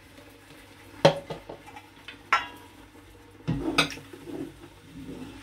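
Kitchen utensils knocking and scraping: a spatula knocking and scraping blended onion-garlic paste out of a blender cup into a pan, then a wooden spoon stirring it against the pan. There are sharp knocks about a second in and about two seconds in, and a quick cluster of clatters a little past halfway.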